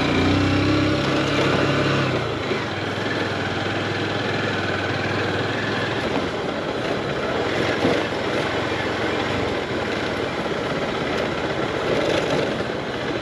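Small motorcycle engine running while riding up and down hills. Its hum is clear for about the first two seconds, then is mostly masked by a steady rushing noise.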